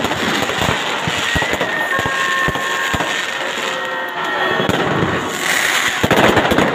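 Fireworks and firecrackers going off in quick succession: rapid sharp bangs over continuous crackling, with a louder burst of crackling and bangs about five and a half seconds in.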